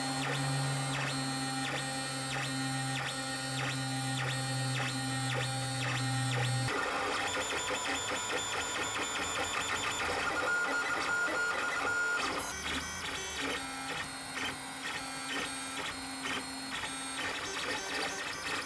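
LulzBot TAZ 3D printer printing, its stepper motors whining in several steady tones that shift as the print head moves across the bed. The tones change abruptly twice, about seven and twelve seconds in.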